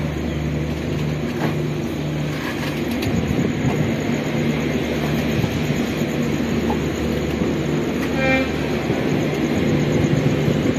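Passenger train running slowly out of a station, heard from on board: a steady rumble with a low hum and occasional clicks of the wheels. A brief horn toot sounds about eight seconds in.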